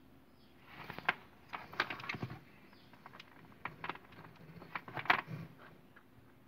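Light clicks and rustles of a plastic bulb holder and its twisted electrical wire being handled against cardboard, in a few short clusters, the sharpest click about five seconds in.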